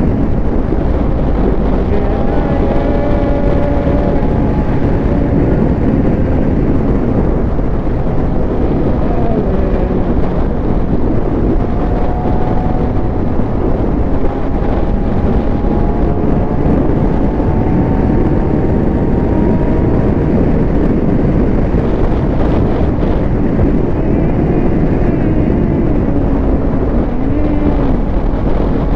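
Suzuki GSX-R 750's inline-four engine running under way, its pitch rising and falling as the throttle is worked, with wind rushing over the microphone.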